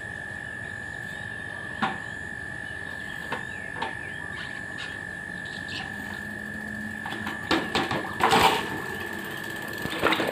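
Mountain bike being wheeled and ridden off across a tiled porch: scattered clicks and knocks, growing into a louder clatter about eight seconds in, over a steady high-pitched background whine.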